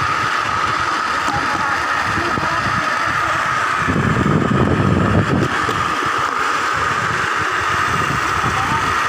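Steel wheels of a rail trolley (eskit) rolling fast along the track, a steady rumble with a constant high hum. About four seconds in, a louder low rumble lasts about a second.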